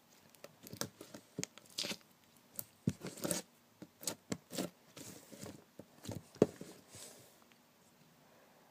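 Slime being squished and pulled apart by hand: an irregular run of small sticky clicks and pops that stops about a second and a half before the end.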